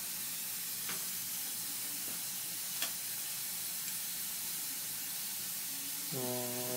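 Dental suction hissing steadily during work in the mouth, with a couple of faint clicks and a short low hum near the end.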